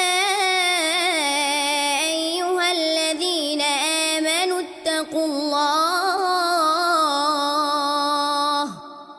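Qur'anic recitation in tajweed style by a male reciter: one long, ornamented phrase, the pitch winding up and down, which breaks off shortly before the end.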